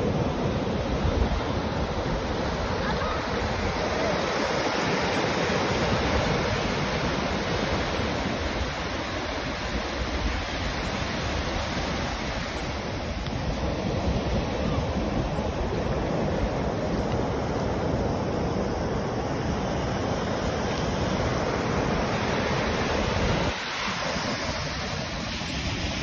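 Ocean surf breaking and washing in over the sand in a steady wash, with wind rumbling on the phone's microphone.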